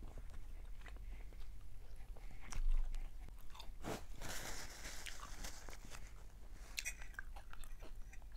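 Close-miked mouth sounds of a person eating fried fish with her hands: chewing and crunching with many small wet clicks and lip smacks. A brief louder hiss comes about four seconds in.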